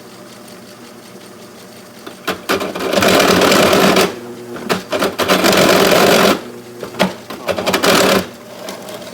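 A machine motor running steadily, then a drill bit biting into the steel bucket pin in three loud, rattling, chattering spells. The work is not held solidly, so the drill chatters like a jackhammer instead of cutting cleanly.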